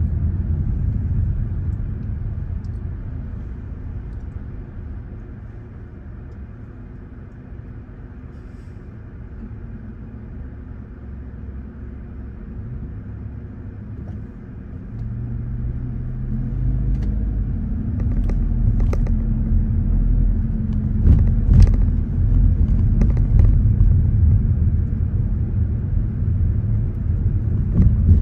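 Low road rumble of a car heard from inside the cabin while driving. It fades for several seconds midway as the car slows behind traffic, then swells again from about halfway through as the car picks up speed, with a few light clicks.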